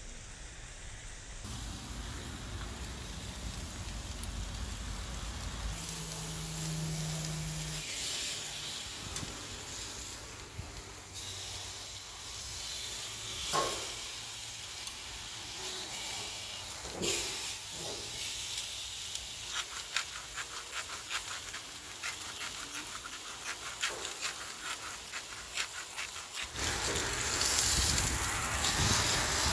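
Tomahawk steak sizzling on a gas grill grate: a steady hiss with rapid crackling pops, growing louder near the end. A couple of brief clinks from metal tongs on the grate partway through.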